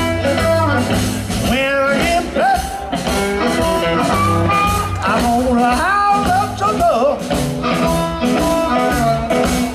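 Live blues band playing: amplified harmonica wailing a lead line of bent, sliding notes over electric guitar, upright bass and drums.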